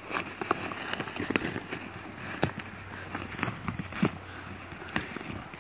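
A small dog's paws and claws scratching, scraping and knocking at a sled lying on snow, in irregular bursts with a few sharper knocks.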